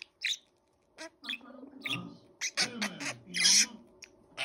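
Budgerigar chattering in a run of short, scratchy squawks with brief gaps between them, the loudest about three and a half seconds in.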